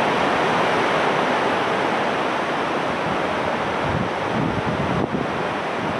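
Steady roar of a fast-flowing mountain stream, with some wind buffeting the microphone.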